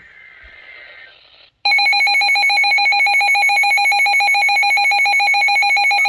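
Midland HH54 weather radio sounding its loud, rapidly pulsing alert tone, which starts suddenly about a second and a half in after fainter radio audio. The alarm is set off by the required weekly test, which the radio has decoded as a severe thunderstorm warning.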